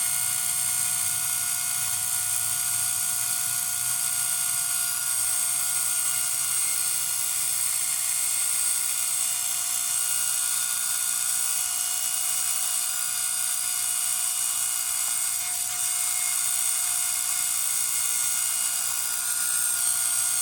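Central Pneumatic air compressor's electric motor running flat out at a steady speed, a constant high whine with a hiss over it. It is running with its cooling fan removed and is overheating.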